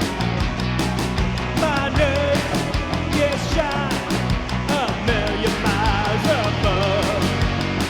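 Rock music: a band playing a steady, driving beat with drums and guitars. From about two seconds in, a lead line enters with bending, wavering notes.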